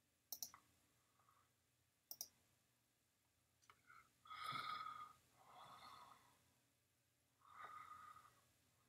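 Two faint computer mouse clicks about two seconds apart, each a quick double tick, as answers are selected. Then come three soft breaths, the first about four seconds in and the loudest.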